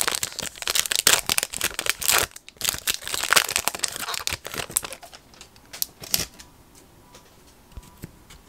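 A Topps Chrome trading-card pack's foil wrapper being torn open and crinkled for about five seconds, then a few light taps as the handling quiets down.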